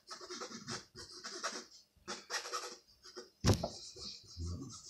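Pencil scratching on moistened linen in a run of short, uneven shading strokes, with a sharp tap about three and a half seconds in.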